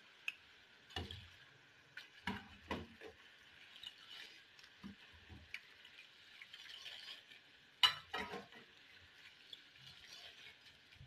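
Boondi (gram-flour droplets) deep-frying in oil in a karahi: a faint steady sizzle, with a few clinks and scrapes as a perforated metal spoon stirs them against the pan. The loudest clink comes about eight seconds in.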